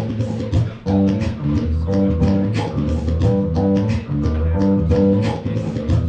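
Live band music with no vocals: bass guitar and guitar playing a riff over regular, quick percussive hits.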